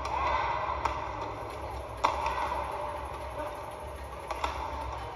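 Badminton rackets striking the shuttlecock in a rally: a few sharp smacks a second or two apart, the loudest about two seconds in, over steady arena background noise.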